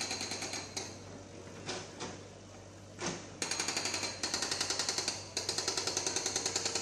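Excavator-mounted hydraulic breaker hammering concrete pavement: a few separate knocks, then from about halfway on rapid runs of blows, about ten a second, that stop and start again several times.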